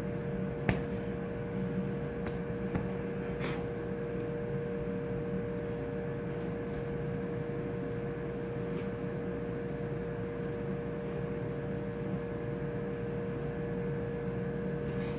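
Steady machinery hum with two steady tones above a lower drone, and a few light clicks and knocks in the first few seconds.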